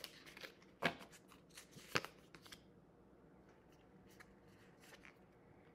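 Tarot cards being shuffled by hand: a run of soft card snaps and clicks, with two louder snaps about one and two seconds in, then only a few faint ticks as the cards are handled.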